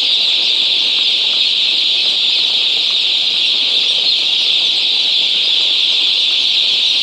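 A steady, dense chorus of many broiler chickens chirping together.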